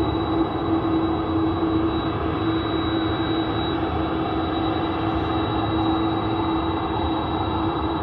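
Jet aircraft turbine running steadily: a constant rumble with a steady hum and a thin high whine, unchanging throughout.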